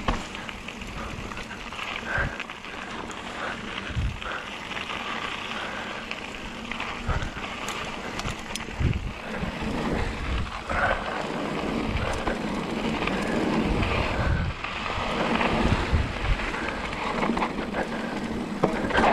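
Mountain bike rolling fast down a dry dirt and gravel singletrack: the tyres keep up a steady rough crunch, and the bike knocks over bumps and rocks again and again, with wind rushing over the camera microphone.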